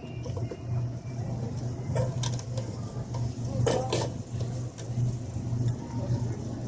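Shopping cart rolling along a store floor, its wheels giving a low, uneven rumble, with a few sharp clicks and knocks around two and four seconds in.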